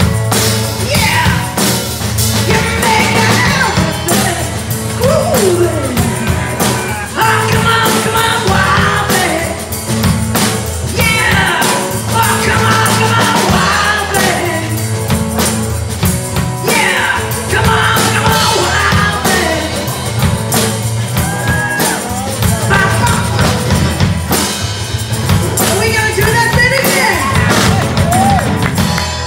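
Amateur rock band playing live: drum kit, amplified guitar and a singer belting and shouting through a microphone and PA.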